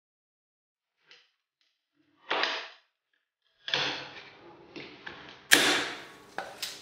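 Green plastic spring clamps being taken off beech slats and the wooden chair frame being handled: a scrape, then a run of clicks, knocks and wooden clatter, the loudest knock about five and a half seconds in.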